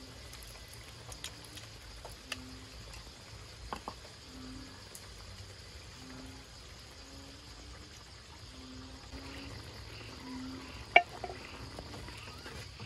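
A frog calling with short low notes about once a second, over a steady high insect hum. A few sharp clicks of a cooking utensil against the wok, the loudest near the end, and liquid poured into the wok.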